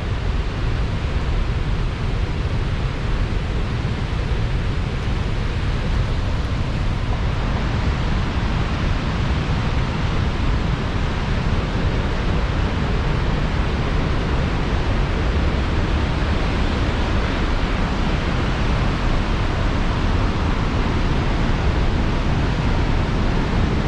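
Steady, loud rushing of a waterfall in flood, Burgess Falls swollen with rainwater pouring over its lip.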